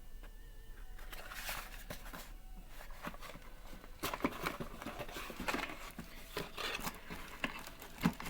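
Packaging being handled while a box is opened: irregular rustles, taps and small knocks of cardboard and plastic, busier in the second half.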